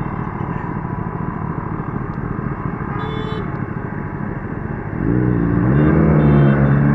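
Motorcycle engine running under a steady rumble of riding noise, then revving up louder about five seconds in, its pitch rising and wavering. A short high beep sounds about three seconds in.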